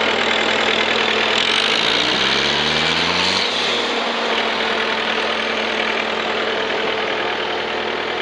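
John Deere 323D skid steer's diesel engine running, revved up from idle about a second and a half in and dropping back to idle around four seconds.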